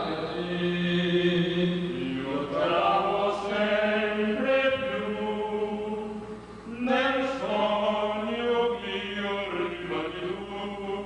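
Men singing together into a handheld microphone, in long held notes, with a short break about six and a half seconds in before the next phrase.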